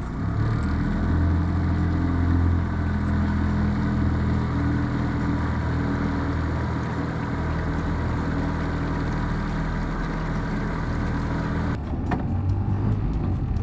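Boat's outboard motor running steadily at trolling speed, a low even engine note with wash noise. The sound changes abruptly near the end.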